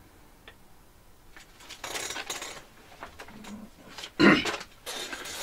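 A mug being handled and set down on a hard surface: rustling and handling noise, then a sharp knock just after four seconds in.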